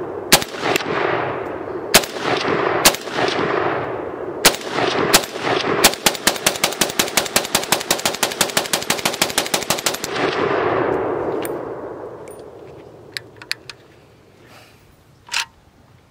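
Zastava PAP AK-pattern pistol firing: about seven single shots at an uneven pace, then a fast string of about eight shots a second for some four seconds, with the echo rolling away after the last shot. A few light metallic clicks near the end.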